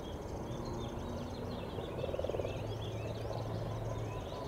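Many short, high chirps and twitters from small animals, repeating throughout, over a low, steady hum.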